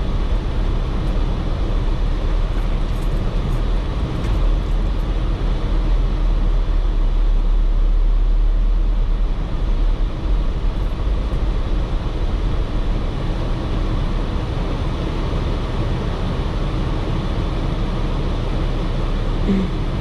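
Jeep Wrangler running, a steady vehicle noise with a heavy low rumble.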